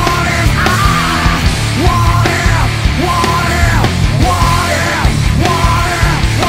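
Loud hard-rock music with a driving, evenly repeating pattern.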